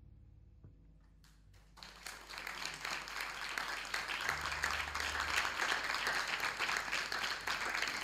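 The last low double bass note fades out, then a few scattered claps about a second in grow into steady applause from a live audience.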